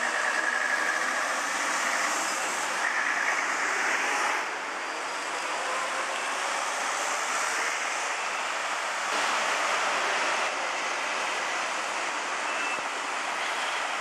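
Steady road traffic noise from cars and trucks driving past on a busy multi-lane street.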